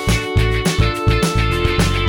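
Background music: a guitar-led rock track with a steady, fast beat.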